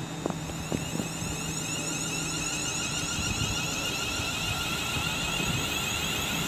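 Class 350 electric multiple unit pulling away from the platform: a steady electric whine from its traction equipment over a low rumble of wheels on rail, growing gradually louder as it gathers speed.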